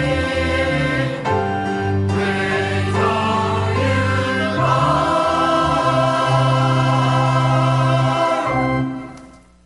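Church choir singing a hymn in harmony, closing on a long held final chord that dies away near the end.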